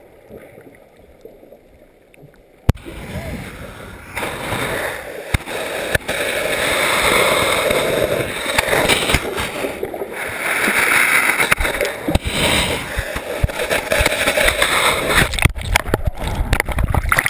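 Surf heard underwater through a GoPro's waterproof housing as the loose camera tumbles: muffled churning and rushing of breaking-wave water, quiet at first, with one sharp knock about three seconds in, then loud rushing water from about four seconds on.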